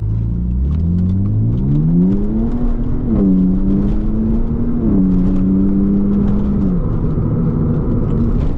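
BMW Z4's 3.0-litre six-cylinder engine accelerating from a standstill, heard from inside the cabin. Its pitch climbs for about three seconds and drops sharply at an upshift, holds, drops at a second upshift about five seconds in, then eases off about seven seconds in.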